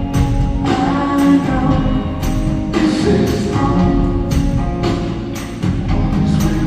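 A live rock band playing in an arena: repeated drum hits over sustained pitched chords.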